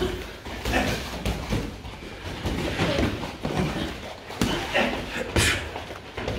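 Gloved punches and kicks landing in kickboxing sparring: irregular thuds and slaps of boxing gloves on gloves, headgear and bodies.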